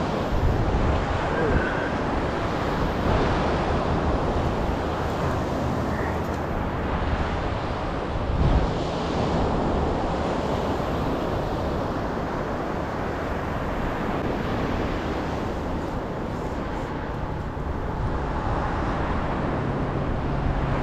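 Steady wash of ocean surf mixed with wind noise on the microphone, with a brief thump about eight and a half seconds in.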